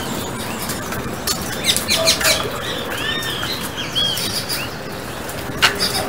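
Young Carib grackle begging: a run of short, high, arched chirps in the middle, with sharp click-like notes about a second and a half in and a loud one near the end.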